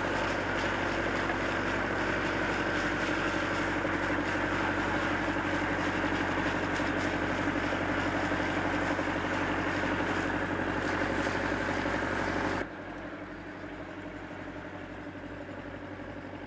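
An engine running steadily at idle, with the hiss and splatter of water from a hose spraying into plastic crates of fish. About two-thirds of the way through the spray stops abruptly, leaving a quieter engine hum with a slow throb, about three or four beats a second.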